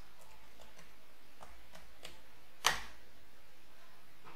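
Computer keyboard keys being typed: a few faint keystrokes, then one louder key strike a little over two and a half seconds in, as a password is entered and sent.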